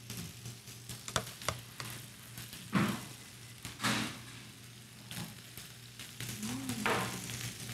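Hot fat sizzling on the plate of an electric contact grill, with a few sharp clicks of metal tongs as cooked burgers are lifted off and set down.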